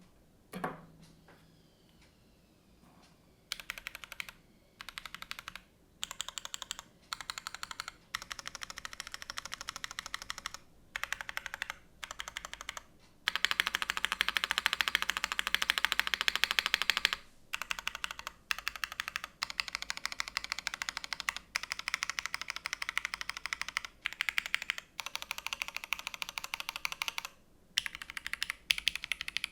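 Typing on a Keycult No.2 TKL mechanical keyboard fitted with Cherry MX Nixie switches: runs of rapid key clacks in bursts with short pauses, the fastest and loudest run in the middle. Just before the typing starts, a single brief knock with a short falling tone is heard, followed by a few seconds of quiet.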